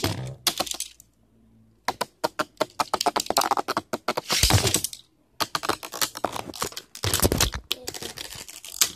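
Beyblade Burst spinning tops clattering inside a plastic tray arena: rapid, irregular clicks and knocks as the tops hit each other and the tray wall, with a few louder scraping bursts. The clatter pauses briefly about a second in.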